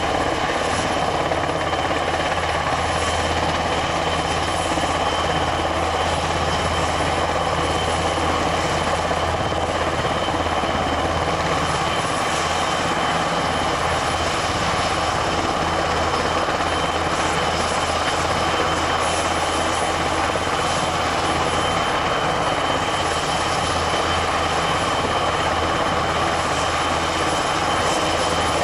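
Airbus NH90 TTH military helicopter running on the ground with its rotors turning: a steady high turbine whine over the rotor noise, unchanging throughout.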